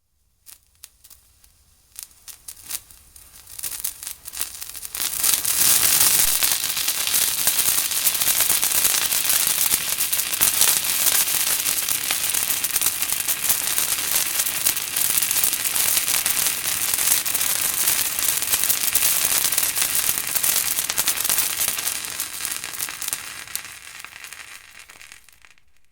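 Firecrackers going off: a few scattered sharp pops that quickly build into a dense, continuous crackle, which thins out and fades near the end.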